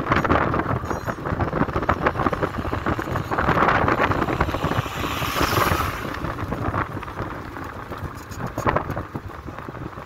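Wind rushing over the microphone with road and engine noise from a moving auto-rickshaw: a steady, gusty rush that swells around the middle and eases off in the last few seconds.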